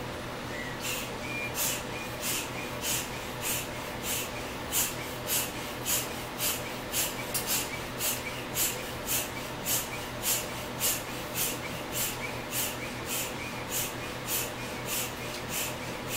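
Small handheld bellows pump squeezed again and again, each squeeze pushing a short hiss of air through the hose into a large inflatable ball, about two puffs a second, starting about a second in.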